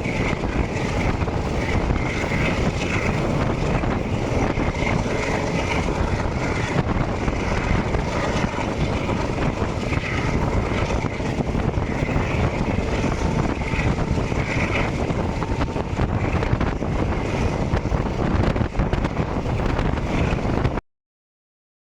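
Passenger train on the move: a steady rumble of wheels on the rails with wind on the microphone and faint, short squeals now and then. The sound cuts off suddenly near the end.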